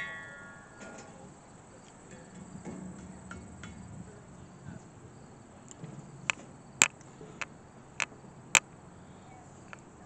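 Footsteps crunching on gravel and dry weeds: a sharp step about every half second from about six seconds in, over a faint outdoor background.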